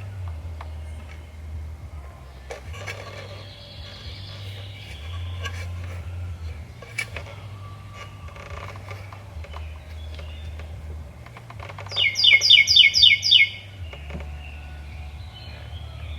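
A bird gives a quick run of about six high chirps about three-quarters of the way through. Under it are a low steady hum and scattered light clicks and knocks.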